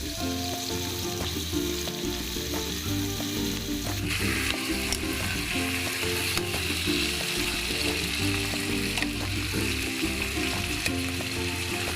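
Chicken sizzling as it fries in a pan, a steady crackling hiss with a few light ticks. Background music with a simple melody plays over it.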